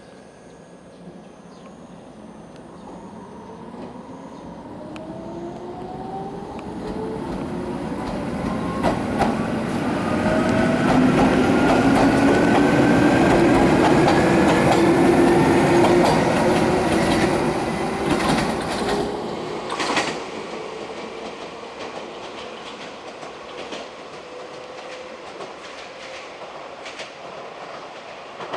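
Toyama Chiho Railway 17480 series electric train, ex-Tokyu, passing while accelerating: its traction-motor whine rises steadily in pitch as the train grows louder. It is loudest about halfway through. Wheels clack over rail joints, then the sound fades to a lower rumble.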